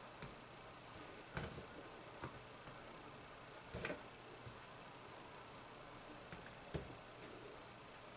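Faint, scattered light taps and clicks, about five in all, as pieces of sliced green capsicum are placed by hand onto a pizza, over quiet room tone.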